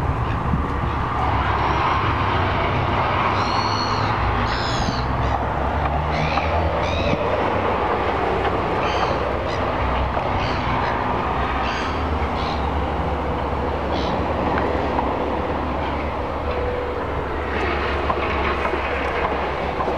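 Steady outdoor background noise with a low, uneven rumble, and short high chirps every second or two, mostly in the first three-quarters.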